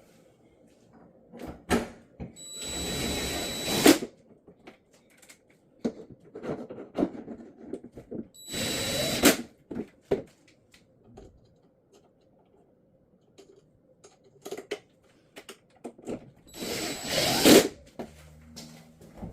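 Power drill/driver run in three short bursts of about a second and a half each, with a steady motor whine. Clicks and knocks of handling come between the bursts.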